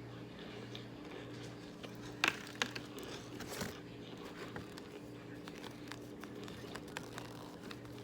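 Chunks of Argo cornstarch being crunched, with scattered soft crackles and a few sharp crunches, the loudest a little over two seconds in. A steady low hum runs underneath.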